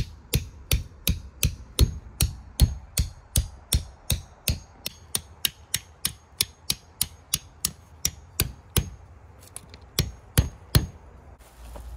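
Claw hammer striking a metal tent stake into gravelly ground: a steady run of sharp, ringing metal-on-metal strikes, nearly three a second, then a short pause and three more strikes near the end.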